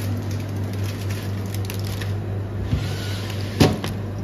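Plastic snack and ice-cream wrappers crinkling as they are handled at an open chest freezer, with a sharp knock about three and a half seconds in, over a steady low hum.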